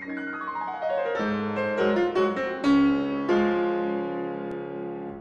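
Short keyboard jingle: a quick run of falling notes, then a few struck chords that ring on and fade out at the end.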